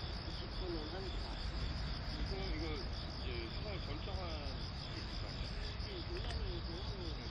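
Steady chirring of crickets in the grass, a continuous high trill over a low background rumble.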